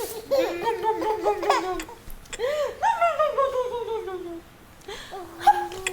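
A young child laughing in two long bouts of rapid, high-pitched pulses, the second sliding down in pitch, then a short sharp sound near the end.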